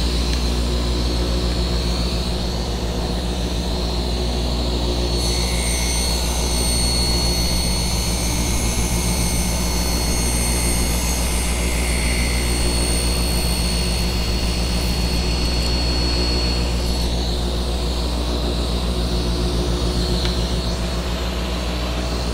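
Shop machinery motor running steadily, a constant hum with no cut heard. A faint high whine joins in for about ten seconds in the middle.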